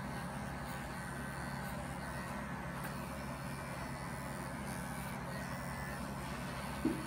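Electric animal clippers running with a steady hum as they shear an angora rabbit's wool. A brief knock near the end.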